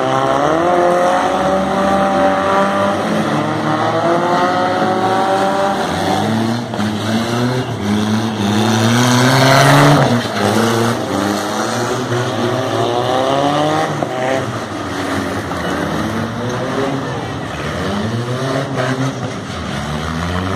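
Car engines revving hard during burnouts and doughnuts, the pitch climbing and dropping again and again. It peaks about ten seconds in, when one car passes close with a rush of tyre noise.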